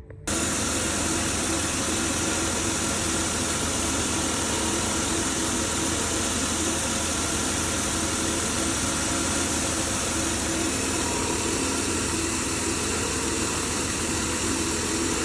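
Chevy Impala's 3.5-litre V6 idling steadily and evenly. It runs with a freshly cleaned crankshaft position sensor and no longer shakes with a rough idle.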